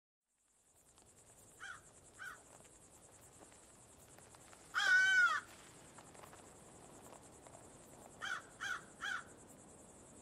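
Natural outdoor ambience: a steady, high insect trill with a corvid calling over it. There are two short caws early, one loud drawn-out caw about halfway through, and three quick caws near the end.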